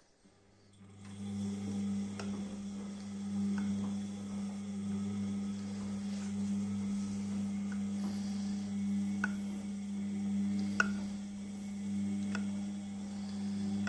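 Beko 6 kg washing machine starting to run its wash cycle: a steady motor hum comes on within the first second, with scattered light clicks and knocks from the load turning in the drum.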